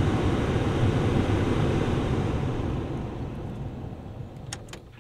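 2004 GMC Envoy's HVAC blower motor running at full speed, a steady rush of air from the dash vents, then winding down and fading away over the last few seconds as it is shut off. The fan now responds to the controls, a sign that the new blower control module works. A couple of light key clicks near the end.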